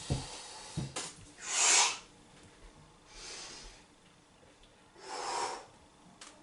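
A man breathing hard from exertion, three strong noisy breaths about a second and a half apart, with a few faint clicks.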